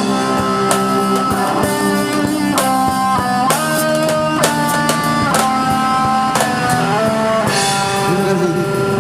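Live band playing the instrumental close of a pop ballad: a melody in long held notes stepping from pitch to pitch over bass and drums, with no singing.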